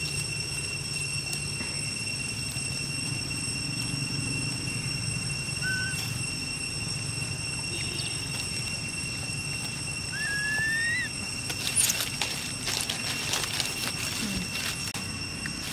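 Over a steady high ringing drone, a short squeak sounds about six seconds in and a longer rising squeak about ten seconds in. Then come a couple of seconds of crackling in dry leaf litter as the macaque mother gets up and walks.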